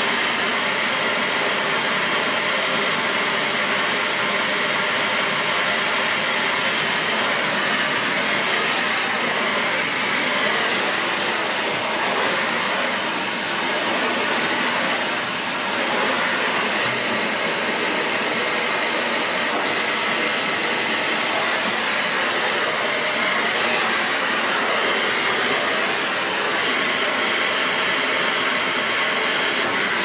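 Dyson Big Ball Animal cylinder vacuum cleaner with an 800-watt motor, running steadily while its turbo-brush floor head is pushed back and forth over carpet.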